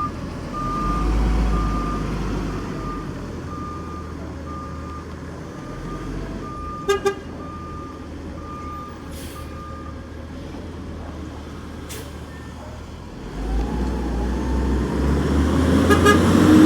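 Garbage truck running with its reversing beeper sounding about twice a second, then falling silent about ten seconds in. A couple of quick horn toots come about seven seconds in, and the engine grows louder near the end.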